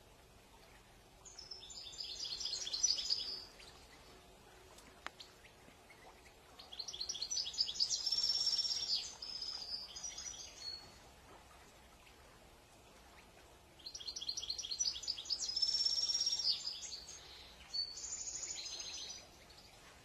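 European goldfinch singing: three bursts of fast, high twittering song, each a few seconds long, with short pauses between.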